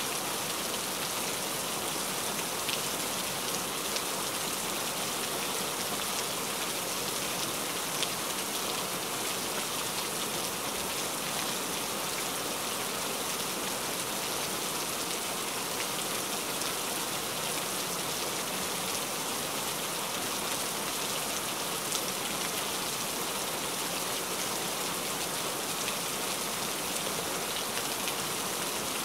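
Heavy rain falling steadily, with a few sharper drop ticks standing out here and there.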